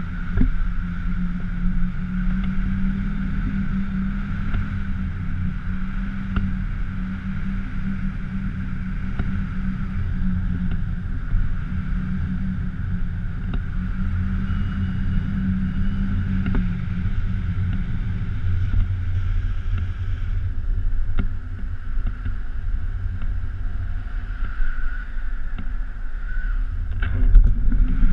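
Wind rushing over a GoPro camera's microphone in paragliding flight: a steady low rumble with a few faint clicks, and a louder knock near the end.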